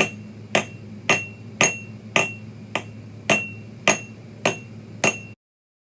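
Recorded knocking on an iron box, played back through the device's small speaker: about ten evenly spaced metallic knocks, roughly two a second, each with a short ring, over a low hum. It cuts off abruptly near the end.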